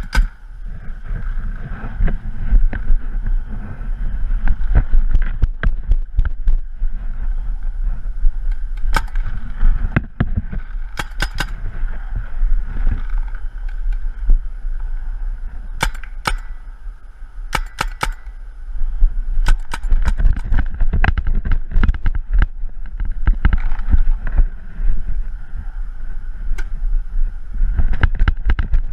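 Paintball markers firing: sharp pops, many in quick bursts of two to four shots, with a heavy low rumble on the microphone underneath.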